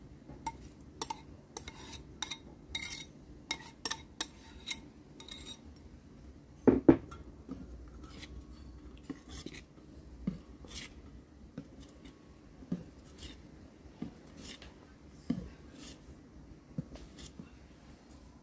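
Wire balloon whisk clinking and scraping against a small stainless steel bowl as whipped egg whites are folded into egg-yolk batter by hand: irregular light clicks, with a louder double knock about a third of the way through.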